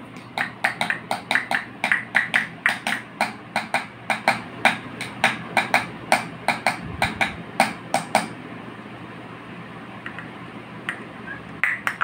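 A rose-ringed parakeet knocking a small plastic cup on a terrazzo floor: a quick run of sharp clicks, about three a second, that stops about eight seconds in, with a few scattered taps near the end.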